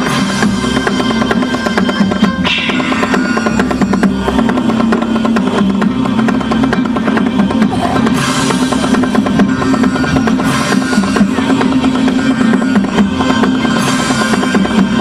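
Music with fast, steady drumming that carries on without a break.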